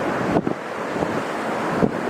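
Strong blizzard wind rushing and buffeting the microphone, with two brief harder gusts, about half a second in and near the end.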